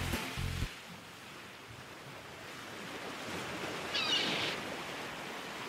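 A song's last notes cut off within the first second, leaving a steady rushing sound of surf. A short high-pitched chirp comes about four seconds in.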